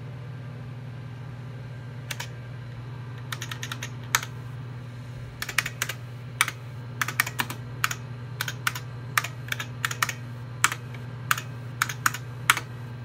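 Computer keyboard keys being typed in short bursts of sharp clicks as DOS commands are entered, over a steady low hum.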